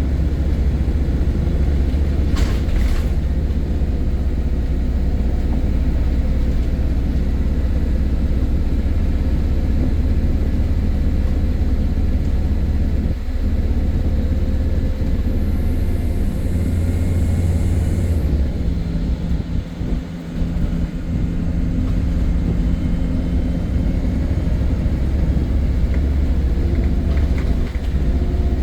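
MAN-chassis Enviro300 single-deck bus running, a steady low drone of engine and drivetrain. A short rattle comes a few seconds in, a high hiss about halfway, and a brief dip in the drone a little later.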